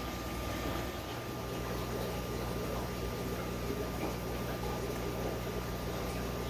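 Steady low electrical hum with a thin high whine over a soft even hiss, unchanging throughout.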